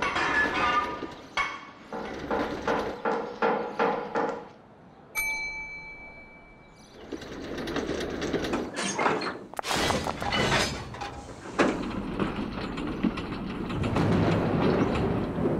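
Fast, rhythmic knocking with a ringing metallic pitch, then a single tram bell ding about five seconds in, then the rumble and clatter of a tram running on rails with scattered clanks.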